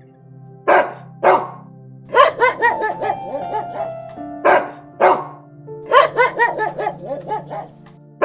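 A dog barking over background music: two single barks, then short runs of quick barks.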